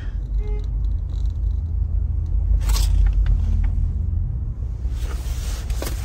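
Low steady rumble of a parked car idling, heard from inside the cabin, with a few faint clicks.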